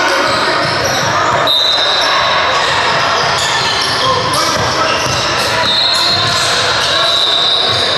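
A basketball bouncing on a hardwood gym court amid players' voices, all echoing in a large hall. A thin high tone sounds about one and a half seconds in and again from about six seconds in.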